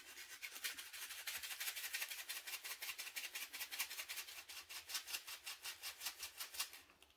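Small plastic bag of resin diamond-painting drills shaken by hand: a quick, even rattle of the tiny beads, about five shakes a second, stopping near the end. The shaking is meant to break up the static cling of the charged drills.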